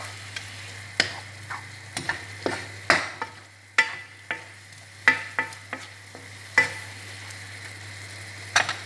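Wooden spoon stirring noodles in a frying pan, knocking and scraping irregularly against the pan, over a steady sizzle of frying.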